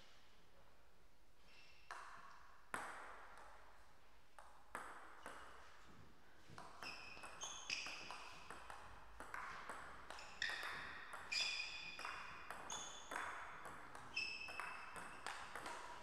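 Table tennis ball being hit with bats and bouncing on the table, each contact a sharp click with a brief ringing ping. A few single bounces come in the first seconds, then a quick rally of hits and bounces runs from about six seconds in until near the end.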